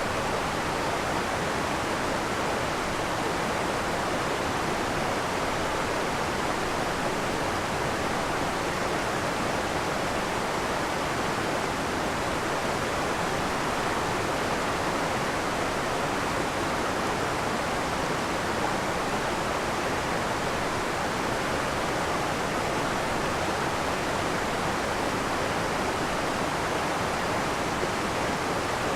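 Sweet Creek Falls, a waterfall on a forest creek, pouring with a steady, even rush of water.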